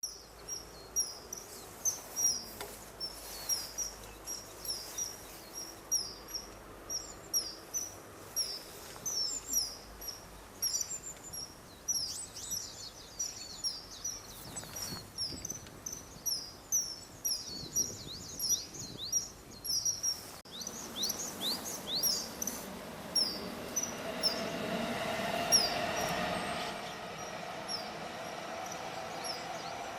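Male common kingfisher on a perch giving short, high, piping calls over and over, about two or three a second; the uploader takes them for calls to a female. Near the end a low rumble with a steady hum builds up under the calls.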